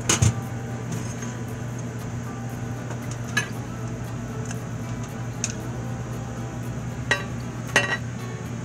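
Aluminium burner head and burner tube of an RV propane stove being handled and lifted out, giving a handful of sharp metallic clinks and taps against the stove's sheet-metal pan, the loudest just at the start. A steady low hum runs underneath.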